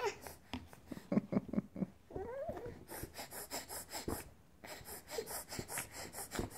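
Baby fussing with short grunts and a brief rising whimper between breaths as she starts to get upset.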